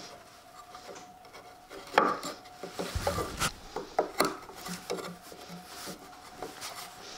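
A steel corner chisel worked by hand into the inside corner of a wooden box, scraping and cracking as it pares out the wood fibres, with a few sharp clicks, the loudest about two seconds in.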